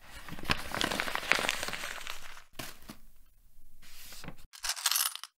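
Stiff old paper crinkling and crackling as it is handled, in several bursts that cut off abruptly.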